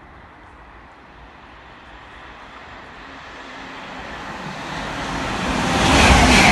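LNER Class 801 Azuma electric train approaching at high speed, its rushing wheel-on-rail noise growing steadily louder until the train sweeps past close by about six seconds in.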